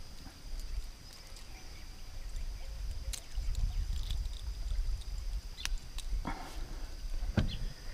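Wind rumbling on the microphone, with a few small sharp clicks and taps as a fishing lure or snap is handled and clipped onto the line.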